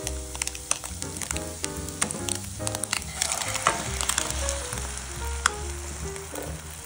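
Food sizzling in a frying pan, with a few sharp clicks along the way, over background music with a stepped melody and bass line.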